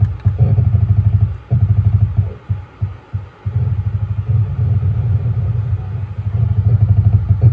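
Speaker driven by a home-built transistor power amplifier (5200 output transistors) playing a song, heard almost only as heavy bass: a deep, fast-pulsing low rumble in stretches with short breaks. There is little treble above it, the bass-heavy sound of a capacitor wired in parallel across the speaker.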